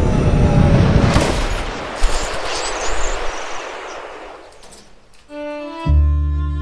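Film soundtrack music and effects: a loud dense swell with a sharp hit about two seconds in fades away over several seconds. Near the end a low, sustained music chord comes in.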